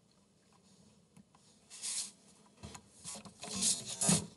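Soft rustling and rubbing noises in a few short bouts, with a few faint clicks.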